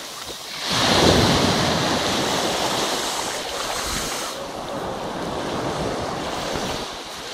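Small waves washing up onto a sandy beach, a steady rushing hiss that swells about a second in, with wind buffeting the microphone.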